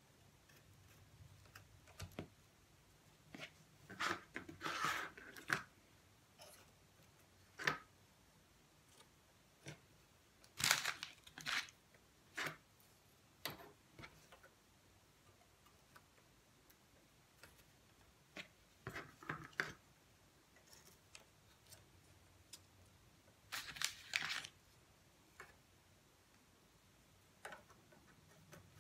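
Wooden clothespins being pinched open and clipped onto a wire wreath frame: scattered clicks and short rattling bursts of wood and spring against wire, several loud clusters among quieter single clicks.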